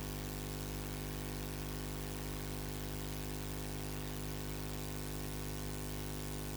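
Steady electrical hum with hiss, unchanging throughout: the noise floor of an audio feed carrying no programme sound.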